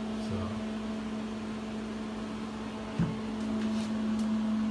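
Steady machine hum, even in pitch, with a single low knock about three seconds in.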